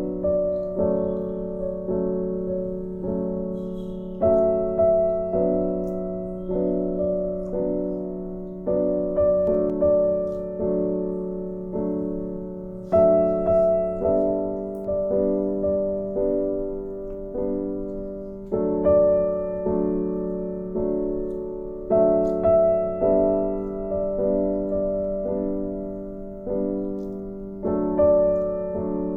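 Background piano music: evenly paced notes, each struck and fading away, with a louder phrase starting about every nine seconds.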